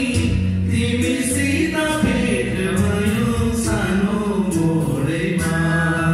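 Men singing a Nepali song into handheld microphones, the voices held on long notes over a steady low accompaniment.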